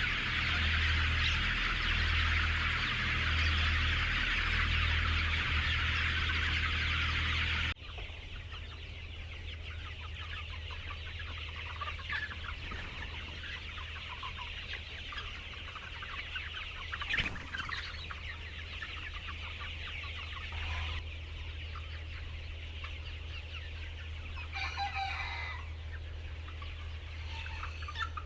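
A flock of chickens clucking: a dense din for the first eight seconds, then quieter scattered clucks after a sudden change. A rooster crows briefly near the end.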